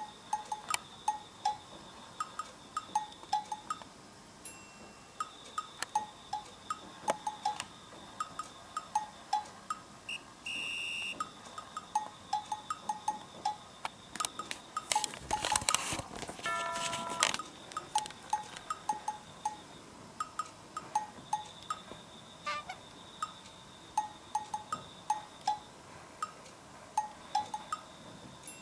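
Light background music made of short plinking, bell-like notes at changing pitches in a loose, steady rhythm.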